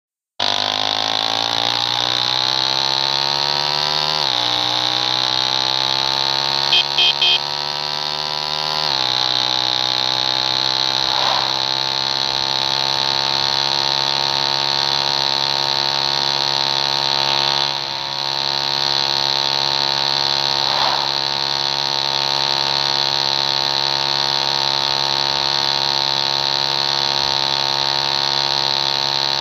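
CNC machine running, its motor whine climbing slowly in pitch and falling back suddenly twice, then holding a steady pitch. Three short beeps sound about 7 seconds in.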